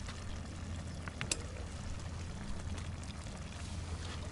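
Riverside background noise: a steady low hum under a faint wash, with one light click about a second in, a spoon against a steel bowl.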